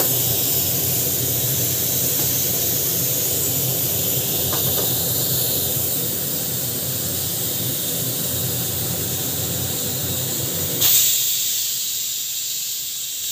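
Stovetop pressure cooker venting steam through its whistle weight, a steady hiss. About eleven seconds in it flares briefly louder, then goes thinner.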